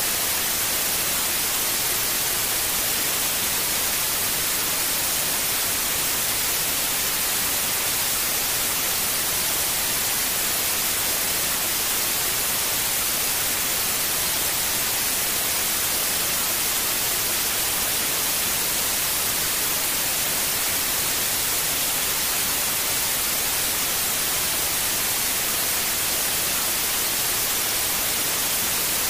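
Steady white noise: an even, unchanging hiss, strongest in the treble.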